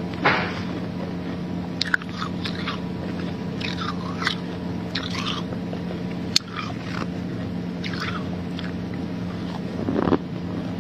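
Person biting and chewing snow: a series of crisp, irregular crunches, the loudest near the start and again near the end, over a steady low hum.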